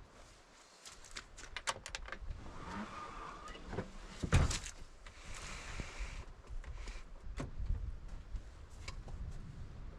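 A run of clicks and knocks from something being handled, with one louder thump about four and a half seconds in, over a low rumble that starts about a second in.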